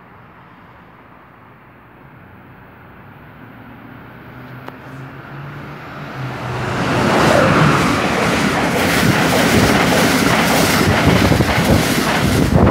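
Amtrak passenger train approaching and passing at speed on the near track: a low hum builds for several seconds, then from about seven seconds in the loud rush and rumble of the stainless-steel coaches going by, with rapid wheel clatter over the rails.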